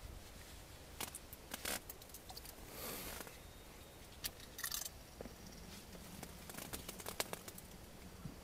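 Faint, scattered small clicks, taps and brief rustles as fishing tackle is handled and a light multi-hook rig is lifted from the ice hole.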